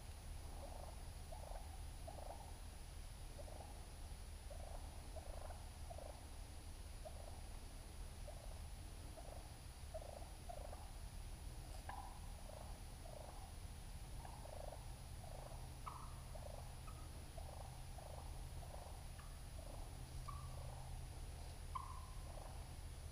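Flock of wild turkey hens calling faintly: a steady run of short, soft yelps and clucks, about two a second, with a few higher, sharper notes in the second half.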